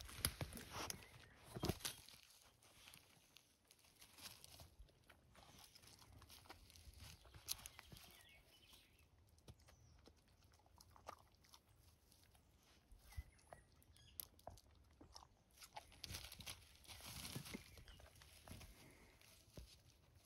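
Faint rustling of bilberry shrubs and soft chewing and mouthing from a Labrador retriever eating wild blueberries off the bushes, with scattered small clicks and crunches. The rustling is louder in the first two seconds and again around seventeen seconds.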